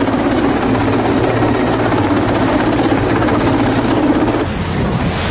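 Military transport helicopter hovering close overhead, its rotor and turbine engines making a steady, loud drone. Near the end the sound changes abruptly to a different, lower rumble.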